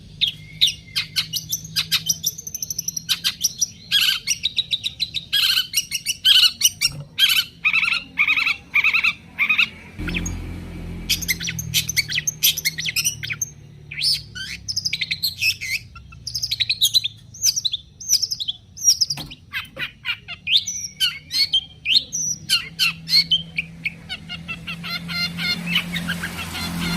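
Long-tailed shrike (cendet) singing a fast, varied chatter of short, sharp chirps and harsh notes that follow one another rapidly, the kind of song that sets caged shrikes singing in reply.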